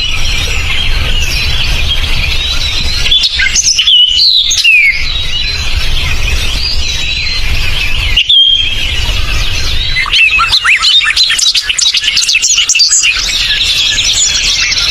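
A chorus of forest birds chirping and whistling, many birds at once, growing into a dense flurry of quick down-sweeping chirps from about ten seconds in. A low steady rumble sits underneath for the first half.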